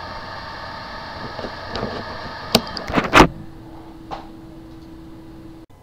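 Recorded sound of a hard drive on the bench: a steady whirring noise, then a few sharp clicks about two and a half to three seconds in, the loudest part. A steady low hum follows and cuts off suddenly near the end.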